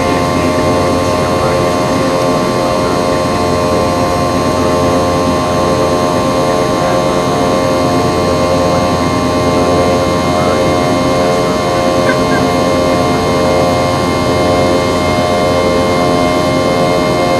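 Steady cabin drone of a Boeing 717-200's rear-mounted Rolls-Royce BR715 turbofan engines, heard from inside the cabin: a constant rush with several steady whining tones over it.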